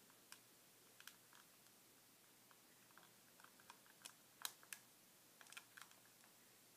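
Faint, scattered small clicks and ticks of a thin clear plastic box being handled and pried at while trying to slide it open, the sharpest click a little past the middle.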